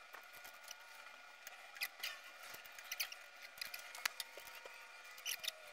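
Faint scattered clicks and light taps of wires and small parts being handled at a metal motor-starter switch box, over a faint steady hum.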